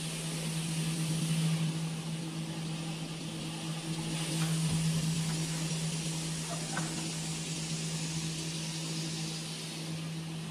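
Stone-cutting machinery running: a steady motor hum with a constant hiss of water spray, and a couple of faint knocks partway through.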